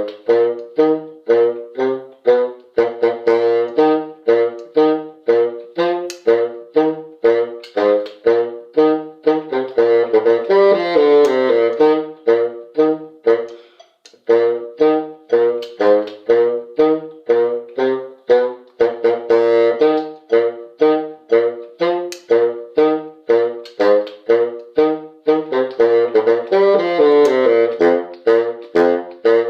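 Instrumental music on wind instruments, saxophone- and brass-like, played as a steady pulse of short notes about three a second, with a brief break about fourteen seconds in.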